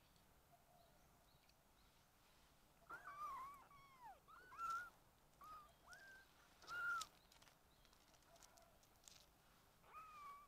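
Kittens mewing: a string of short, high cries from about three seconds in, then one more near the end.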